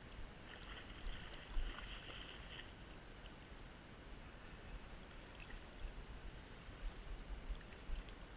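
Shallow creek water running over gravel, with wind rumbling on the microphone. A higher hissing noise rises about half a second in and lasts roughly two seconds.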